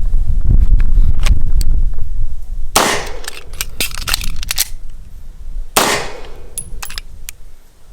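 Gunshots at a shooting range: a loud shot about three seconds in, several more cracks over the next two seconds, another loud shot near six seconds, then a few lighter clicks. Wind rumbles on the microphone before the first shot.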